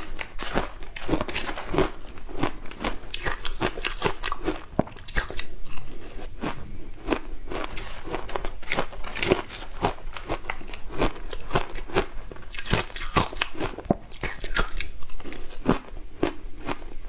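Frozen matcha ice being bitten and chewed close to the microphone: a dense, irregular run of sharp crunches and cracks.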